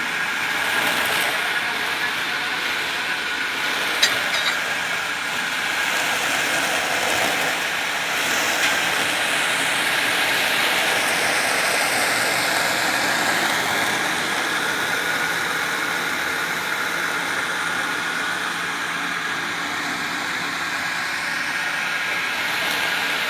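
Electric-motor well-drilling rig running steadily: a continuous hissing rush with a faint steady whine, and a single sharp knock about four seconds in.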